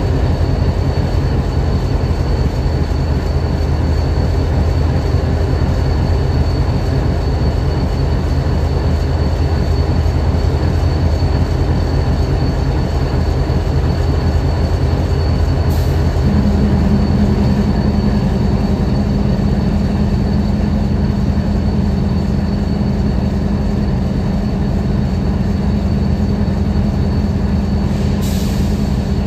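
Idling diesel engine of BNSF locomotive 7876, running steadily with a faint high whine over its low drone. About halfway through, an extra steady hum comes in and stays.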